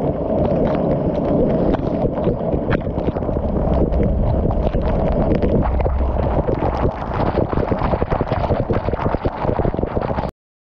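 Strong wind and heavy rain on a moving car: a steady low rumble of wind on the microphone, with many sharp raindrop taps. It cuts off suddenly near the end.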